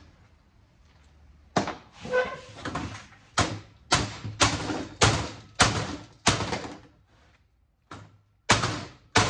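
Claw hammer knocking and prying at the sheet-steel case of a cable TV box: about ten sharp knocks at irregular intervals, beginning after a second and a half of quiet.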